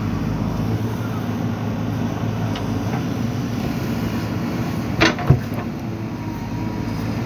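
JCB backhoe loader's diesel engine running steadily, with two sharp knocks about five seconds in, a fraction of a second apart.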